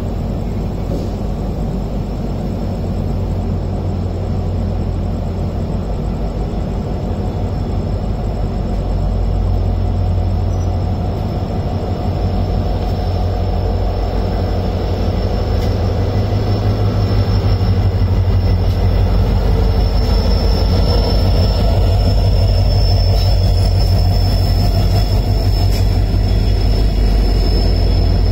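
Diesel-hauled passenger train arriving on the next track and rolling past close by: a steady low rumble that grows louder as the locomotive draws alongside and the coaches pass. A thin, high steady whine joins it in the last third.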